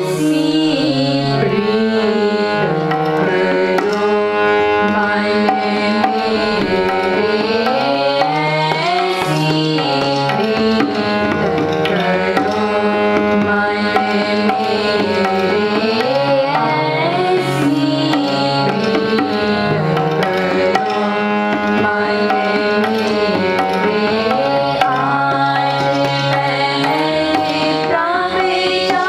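Gurbani kirtan: two harmoniums sound sustained chords and melody under girls' singing voices, accompanied throughout by steady tabla strokes.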